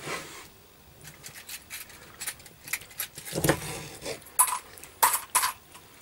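A Victorinox Soldier 08 pocket knife's part-serrated blade cutting through raw chicken on a wooden cutting board. It makes a series of short crunches and snaps as it goes through bone and cartilage, the loudest in the second half.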